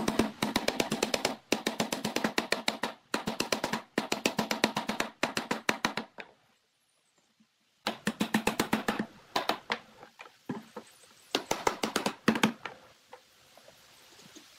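Hammer knocking pine frame pieces together in rapid runs of blows, about eight to ten a second, broken by short pauses and one longer silent gap about halfway through.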